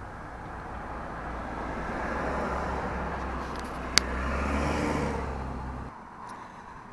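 Traffic passing on the road outside, heard through the windshield of a stationary vehicle, swelling and fading over a few seconds over a low steady engine hum. A single sharp click comes about four seconds in, and the low hum cuts off suddenly about six seconds in.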